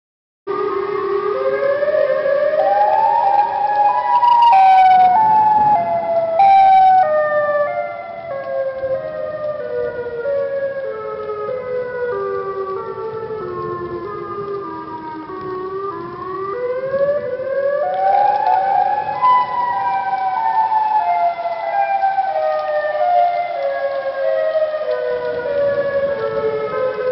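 Outdoor warning siren wailing in a pulsing, stepped pattern. Its pitch rises over about three seconds, then falls slowly for about twelve. It rises again about sixteen seconds in and falls once more, over the hiss of heavy rain.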